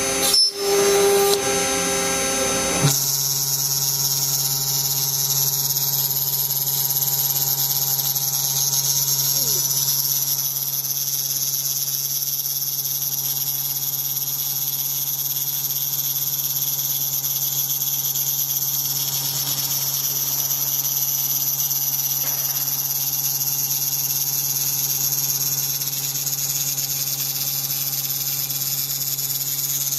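CNC router running with a steady high whine over a constant low hum. A louder, noisier stretch of machining ends abruptly about three seconds in, leaving the steady tones.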